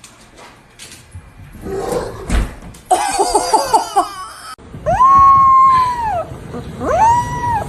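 Dog howling in long, drawn-out high calls that rise, hold and fall away, one about five seconds in and another near the end. They come after a quick run of short high cries about three seconds in.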